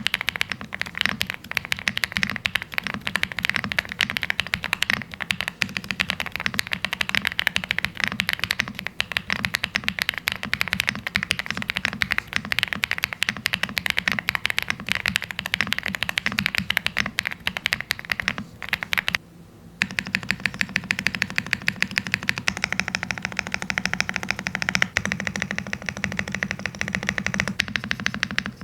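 Continuous fast typing on a Lucky65 mechanical keyboard with MMD Princess linear switches, plate-mount stabilizers, stock foams and doubleshot PBT keycaps: a dense run of keystrokes. There is a brief pause about two-thirds of the way through, then the typing carries on.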